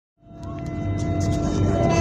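Z2N double-deck electric multiple unit standing at rest, its electrical equipment giving a steady whine of several held tones over a low rumble, fading in just after the start and growing louder.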